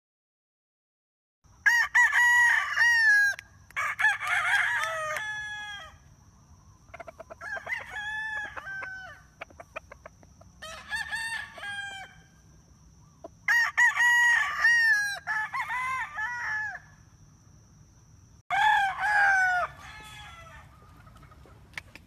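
Gamefowl roosters crowing, about seven crows one after another, starting about a second and a half in, with the last one after a short gap near the end.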